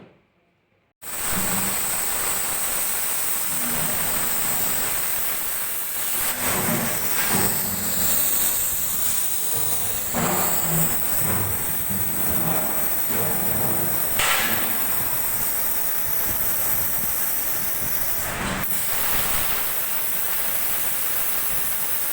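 CNC cutting torch cutting steel plate: a loud, steady hiss that starts abruptly about a second in and carries on, with brief brighter flares twice.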